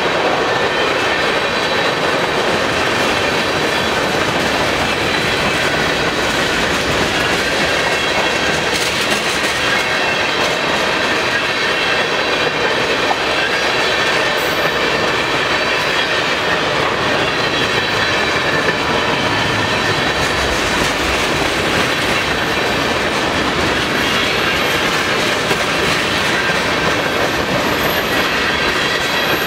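Cars of a mixed freight train rolling past a grade crossing: a loud, steady rush of steel wheels on rail that does not let up.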